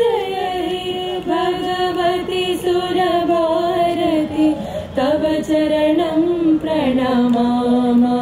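Students singing a Hindu invocation to Goddess Saraswati, one melodic line of long held notes. New phrases begin about a second in, near five seconds and near seven seconds.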